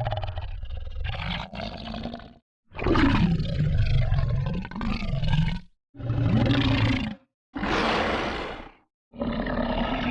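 A run of monster snarl sound effects: rough, growling creature snarls played one after another, about five in all, each one to three seconds long and separated by short dead silences. The one near the eight-second mark is hissier than the others.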